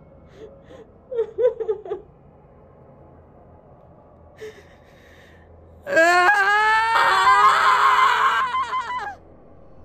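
A woman whimpering in short, broken sobs, then about six seconds in a long, loud scream of about three seconds that rises in pitch and turns ragged before cutting off.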